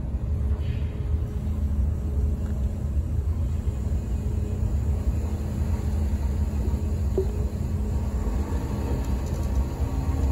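Ferry's engines and shipboard machinery running while the ship casts off: a steady low rumble with a constant droning hum.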